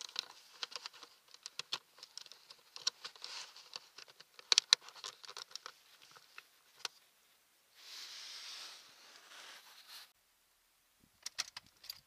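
Fingers handling a plastic wiring connector and its wires under a car seat, close to the microphone: a run of sharp clicks and scratches, then about two seconds of rustling, and a few more clicks near the end.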